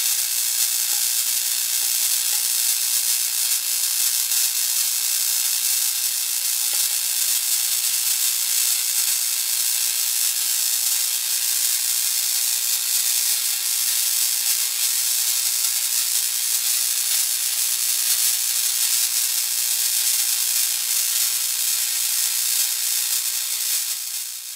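Steady high-pitched electrical hiss from a high-voltage discharge setup, with a faint low hum through the middle; it cuts off abruptly at the end.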